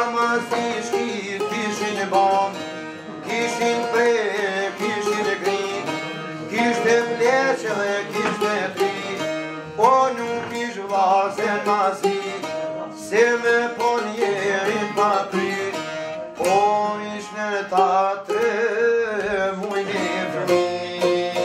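Albanian çiftelia and sharki, long-necked lutes, plucking a folk tune over a steady drone, with a man's voice singing a wavering melody over them.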